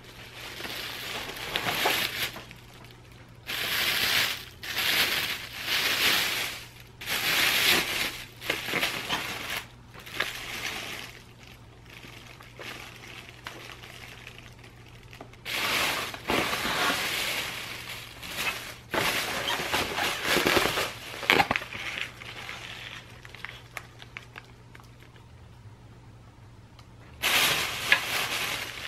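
Thin plastic carryout bag and plastic takeout packaging rustling and crinkling as they are handled, in several bouts of a few seconds each with quieter gaps between them.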